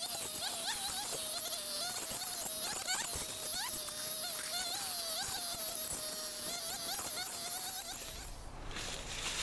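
Husqvarna 345 two-stroke chainsaw running at a distance with a whining buzz, its pitch wavering and dipping as the throttle is worked. It stops about eight seconds in.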